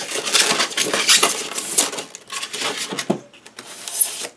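Hands pulling parts out of a moulded polystyrene foam packing case: a dense rustling and scraping for about two seconds, then scattered clicks and knocks, with a sharp click near the end.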